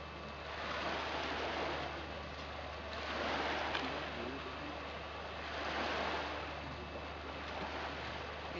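Waves washing on a beach, swelling and fading in slow surges every two to three seconds, over a steady low hum.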